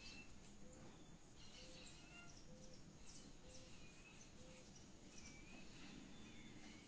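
Near silence: faint room tone, with faint short chirps and a soft low note repeating about once a second.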